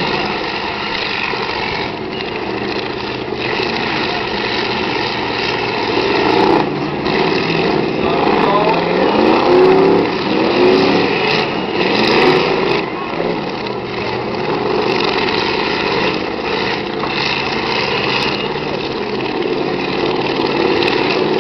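Several demolition derby cars' engines running together and revving up and down as the cars push and ram each other, with a few sharp bangs of collisions.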